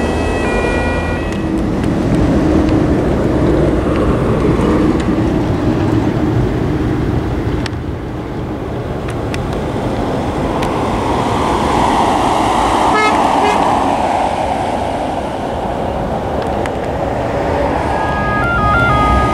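Motorway traffic rushing past, swelling and fading as vehicles go by. An ambulance's two-tone siren cuts off about a second in and starts again near the end.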